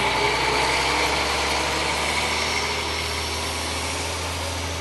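Dump truck's diesel engine running steadily at low revs as it drives slowly along spreading its load of sand, slowly getting quieter.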